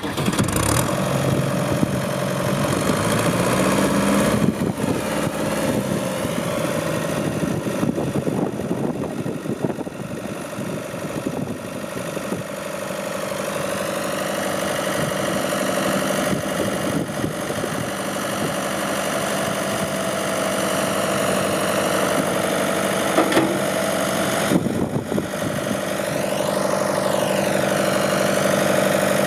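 Long 2610 tractor's diesel engine running steadily at idle, a little louder in the second half.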